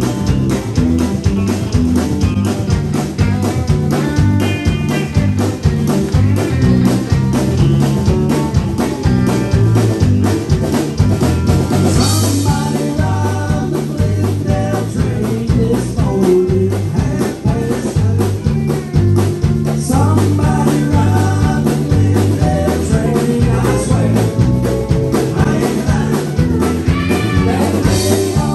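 Live band playing with a steady beat: drum kit, electric bass, pedal steel guitar and electric guitar, with singing in parts.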